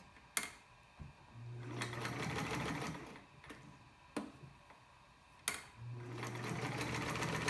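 Freshly overhauled Sears Kenmore 148 sewing machine stitching at a very long stitch length, running in two short runs a few seconds apart with a steady motor hum. A few sharp clicks sound in between.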